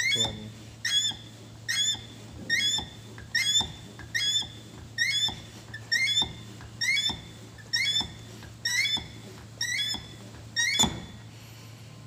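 Manual hydraulic crimping tool (CYO-400) being pumped by hand, with a short squeak on every stroke of the pump handle, about one stroke every 0.8 seconds. A single sharp, loud click near the end, after which the pumping stops.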